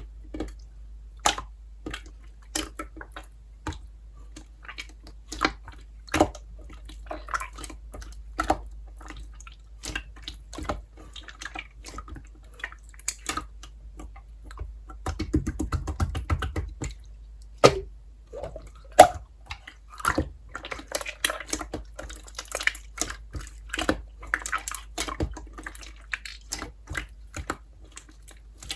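Slime being squeezed, pressed and folded by hand, giving irregular sharp clicks and small wet pops, with a longer spell of continuous squishing about halfway through.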